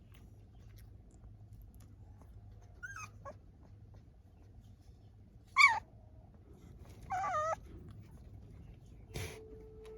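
Puppy whimpering: a few short high whines, the loudest about halfway through, then a longer wavering whine.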